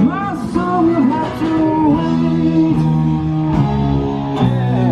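Background music led by guitar, with held notes and some bending ones in the first second or so.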